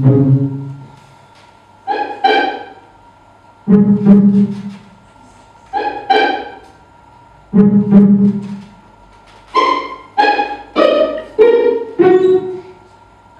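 Sparse instrumental music of single notes that each ring and fade, with pauses between them. A low note alternates with pairs of higher notes, then near the end a run of five notes steps down in pitch.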